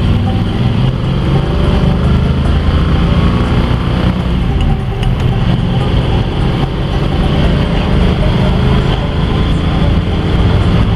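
1955 Ford station wagon's 292 Y-block V8 and road noise while driving at a steady pace, its exhaust leak repaired.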